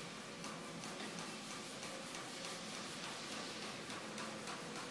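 Workshop background noise: irregular light clicks and ticks over a steady faint hum.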